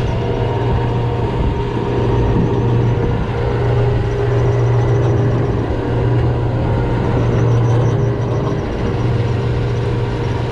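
Steady mechanical drone of the head boat's engine running while the deck anchor winch hauls in the anchor rope: a constant low hum with a steady higher whine over it.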